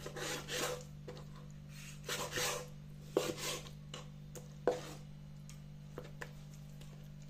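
Chef's knife trimming skin and fat from raw chicken leg quarters on a wooden cutting board: a few short scraping strokes of the blade against the board, then several sharp taps, over a low steady hum.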